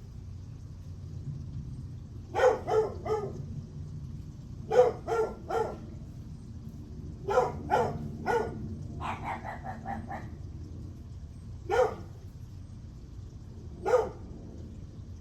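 A dog barking repeatedly, mostly in quick bursts of three barks, with a brief fast run of lighter, higher yaps about two-thirds of the way through, then two single barks spaced a couple of seconds apart.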